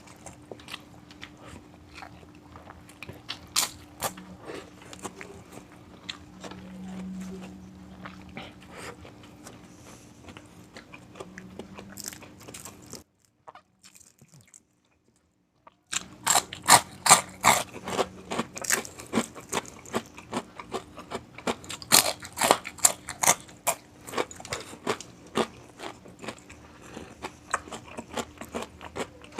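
Close-miked crunching and chewing of crispy food, a string of bites and chews. It is sparser in the first half, and after a roughly three-second silent gap near the middle it becomes louder and denser.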